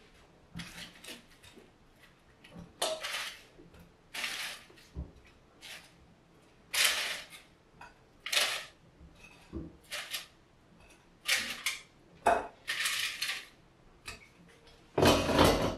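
Kitchenware clattering: a series of short clinks and scrapes, about a dozen spread out, as cooked balls are moved from an air-fryer basket into a glass dish. The loudest, longest clatter comes near the end.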